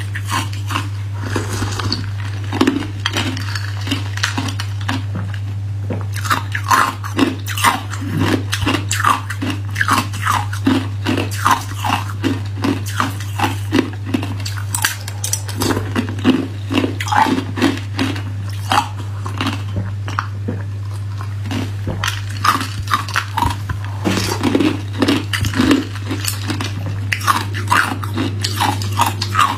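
Close-miked crunching of hard ice cubes being bitten and chewed, many irregular crunches one after another, over a steady low hum.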